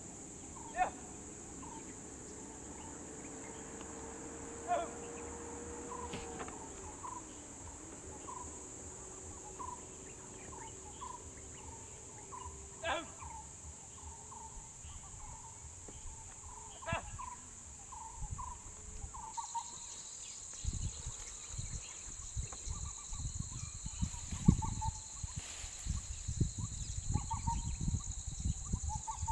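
Forest ambience: a steady high insect drone with repeated short bird calls and a few sharper, louder calls. A faint low hum rises and then drops in pitch early on, and from about two-thirds of the way in a second insect tone joins along with low rumbling wind noise.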